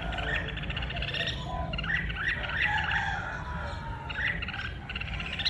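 Red-whiskered bulbul singing excitedly in quick bursts of chattering, warbling notes, densest from about one to three seconds in.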